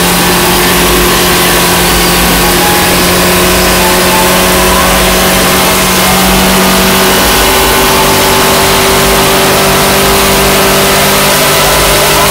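Loud Ford Scorpio engine held at high revs during a burnout, tyres spinning and smoking on the tarmac. The engine note stays steady, then drops slightly about seven seconds in.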